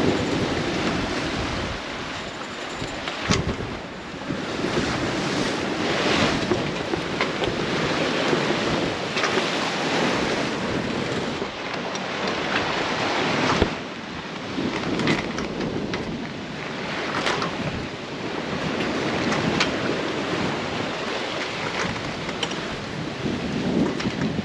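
Open sea rushing past a sailing yacht's hull, with wind buffeting the microphone; the noise swells and eases with the waves, with a couple of sharp knocks.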